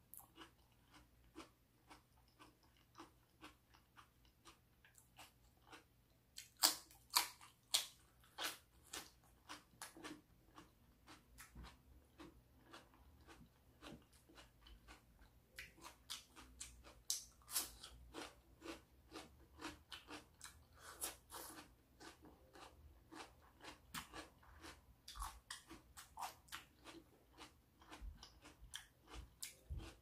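Close-up chewing and biting of stuffed bell-pepper cups: a run of sharp, wet crunches and mouth clicks. The loudest crunches come in a cluster about a quarter of the way in, with more bites around the middle.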